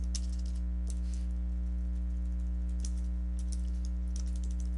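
Computer keyboard being typed: several quick clusters of key clicks, over a steady low electrical hum.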